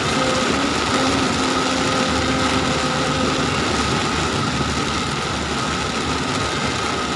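Steady rush of heavy rain and tyre spray heard from inside a moving car's cabin, with a steady car engine hum beneath.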